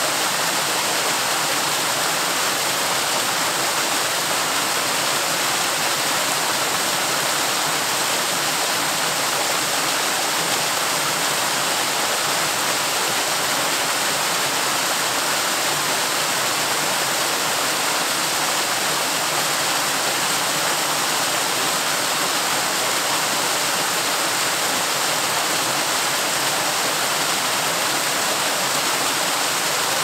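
Small waterfall running steadily: an even, unbroken rush of falling water, mostly hiss with little low rumble.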